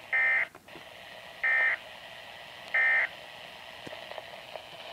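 Three short bursts of SAME digital alert data from a Weatheradio Canada transmitter, each a fraction of a second long and spaced about a second apart, over faint radio hiss.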